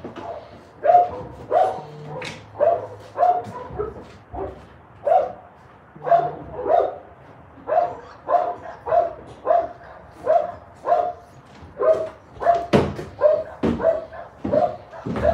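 A dog barking over and over in a steady run of short barks, about two a second.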